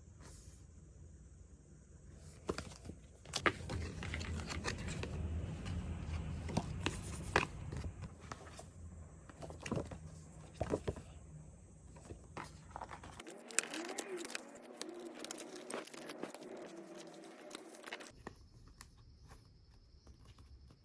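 Packaging being handled and opened: crinkling and rustling with scattered sharp clicks and taps, loudest for a few seconds after about three seconds in.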